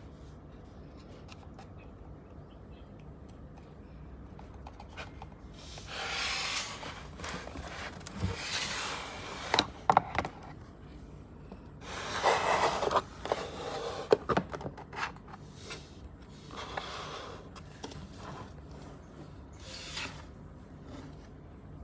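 Plastic Allosaurus action figure being handled and moved on a tabletop: several short bursts of scraping and rubbing, with a few sharp clicks.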